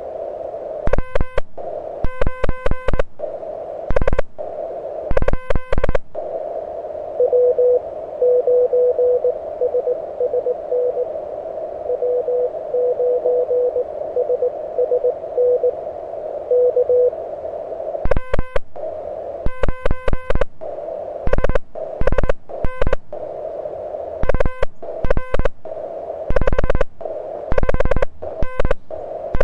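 Morse code on a Mountain Topper MTR-4B QRP transceiver: the operator's own keying heard as loud, buzzy sidetone dits and dahs in two runs, at the start and again through the second half. In between, for about ten seconds, a weak station answers in faint Morse at a similar pitch over the receiver's narrow-filter hiss.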